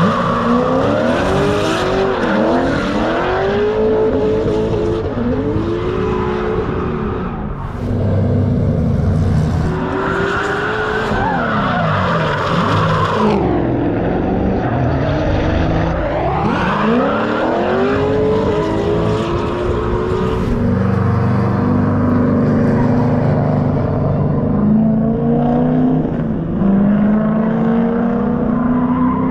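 Two drift cars running in tandem, their engines revving hard and falling back again and again as they slide, with the tyres skidding and squealing.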